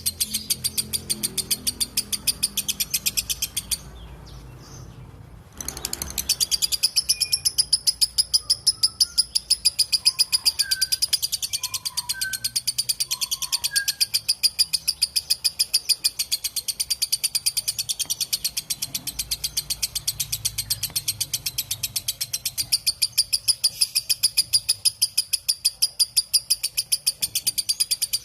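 Lovebird giving its long 'ngekek' chatter: a rapid, evenly spaced high-pitched trill that breaks off briefly about four seconds in, then runs on unbroken.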